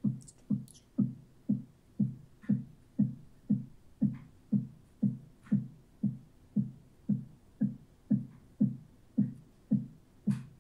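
A steady low drum beat, about two thumps a second, each thump short and dropping slightly in pitch as it dies away.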